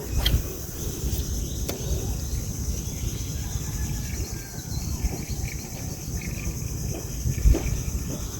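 Steady high-pitched chirring of insects in an outdoor chorus, over a low rumble, with a sharp click near the start and another just under two seconds in.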